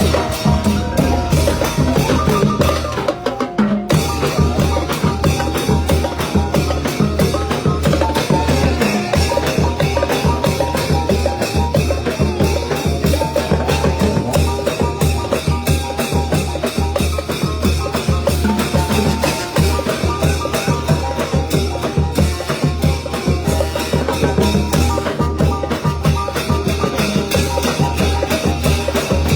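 Thai brass band (trae wong) playing lively procession music over a driving beat of drums and a wood-block-like click, with a brief break in the upper sound about three and a half seconds in.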